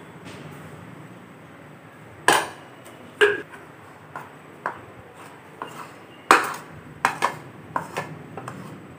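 Metal spoon clinking and scraping against a plastic bowl while oil is stirred into dry gram flour: about a dozen sharp, irregular clinks, the loudest about two and six seconds in.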